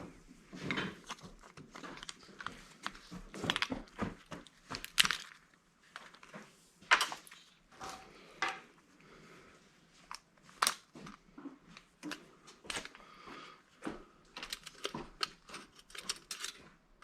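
Irregular clicks, knocks and short scrapes of metal parts and hand tools being handled while an electric angle grinder is taken apart.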